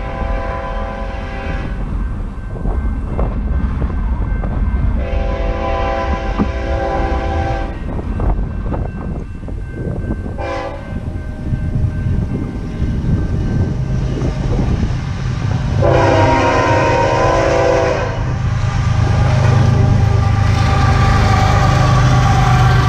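BNSF freight train's air horn sounding the grade-crossing pattern: two long blasts, a short one and a long one, the last the loudest. Under the horn, the low rumble of its diesel locomotives grows louder as they pass close by near the end.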